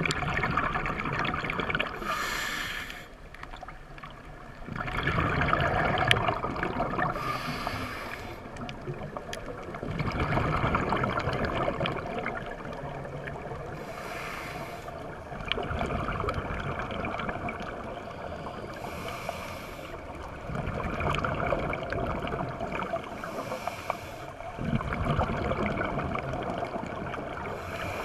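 Scuba diver breathing through a regulator underwater: a short hiss on each inhalation, then a longer rush of exhaled bubbles, about five breaths repeating every five seconds or so.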